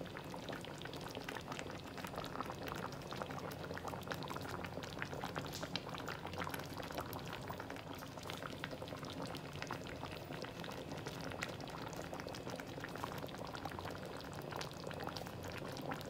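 Thick peanut kare-kare sauce, thickened with rice flour, simmering in a wide aluminium wok, a steady dense crackle of bubbles popping. This is the final boil of a few minutes to let the flavours blend before serving.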